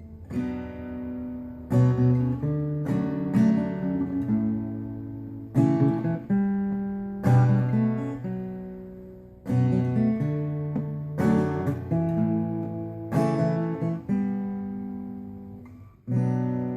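Acoustic guitar playing strummed chords without singing, each chord struck and left to ring and fade before the next, changing chord every second or two: an instrumental break in a song.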